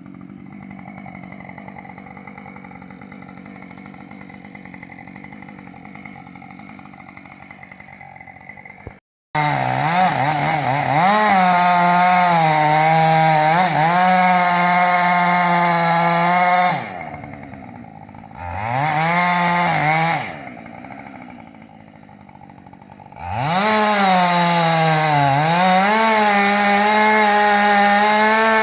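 Husqvarna two-stroke chainsaw cutting wood at full throttle, its pitch dipping and recovering as the chain bogs in the cut. It drops back to idle twice before revving up into the wood again. For the first third it is heard quieter and steadier, before a sudden cut to the loud running.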